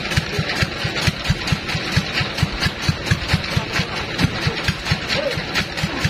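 An engine idling with a slow, regular thudding of about four or five beats a second.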